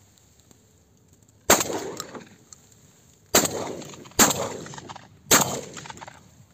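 Four shotgun shots: one about a second and a half in, then three more close together, each trailing off with an echo.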